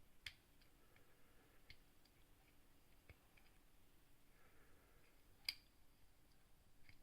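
Faint, sparse metallic clicks of a wire pick and tension wire working the levers inside a seven-lever padlock, with two sharper clicks: one just after the start and one about five and a half seconds in.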